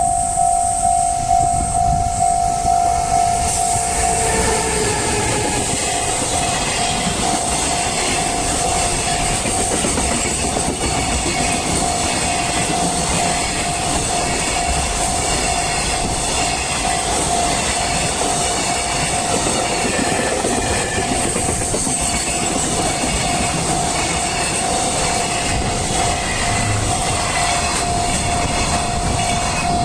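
Japanese level-crossing warning bell ringing steadily while a long train rolls over the crossing, its wheels clattering rhythmically on the rails for about 25 seconds. The bell stands out on its own at the start and again near the end, once the train has passed.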